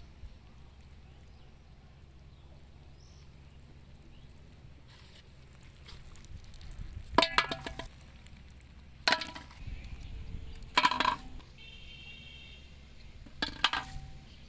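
Four sharp clinks with a brief ring, spread a couple of seconds apart over a quiet background.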